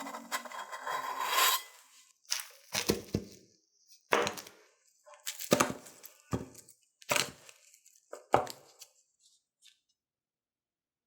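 Frying sizzle fades out over the first two seconds, then the crisp crust of pan-fried cheese potato bread crunches in about seven short bursts, roughly one a second.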